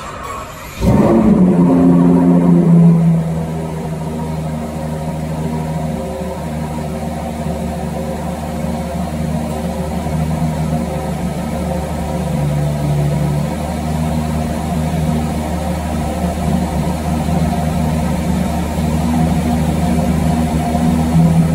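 Ferrari 812 GTS's 6.5-litre V12 starting about a second in, with a brief loud flare of revs, then settling to a steady idle.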